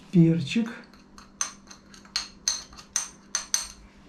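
A metal spoon clinking repeatedly against a small glass saucer while ground pepper is scooped from it, about three light clinks a second.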